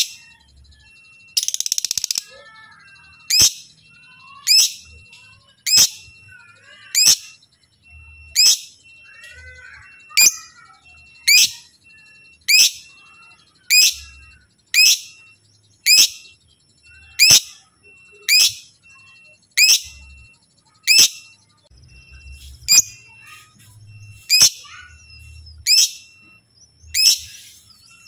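Lovebird giving short, shrill chirps over and over, about one every second and a bit. A longer rasping burst comes about two seconds in.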